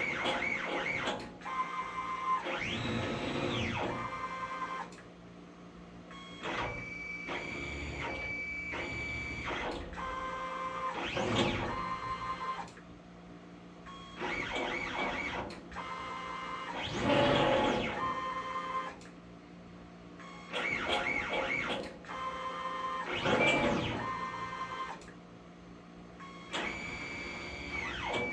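Stepper motors of a CNC plasma table driving the gantry through a test program: whining tones that rise and fall in pitch as the axes speed up and slow down, holding steady during constant-speed moves, with short pauses between moves about every six seconds. A steady low hum runs underneath.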